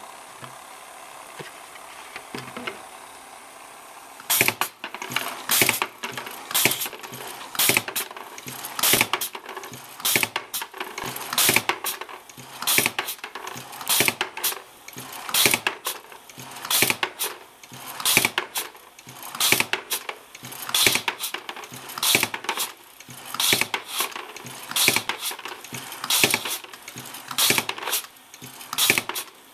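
A foot-pedal bottle-corking machine cycling over and over, each stroke driving a cork out of its head into a plastic bucket with a sharp clack, a little more than one a second. The strokes start about four seconds in, after a faint steady hiss.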